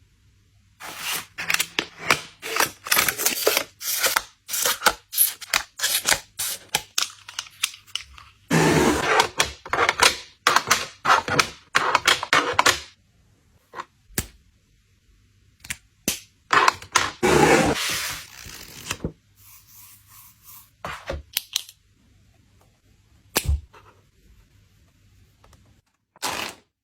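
Product packaging being opened and handled by hand: long runs of quick clicks, crackles and rustles, then a few separate knocks near the end.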